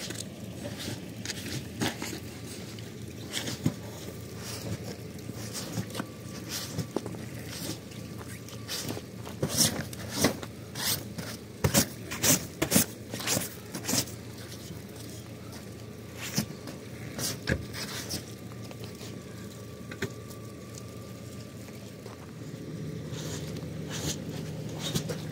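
Straw broom slapping and brushing against a tent's canvas wall to knock off snow, a quick run of sharp slaps over a steady low background rumble.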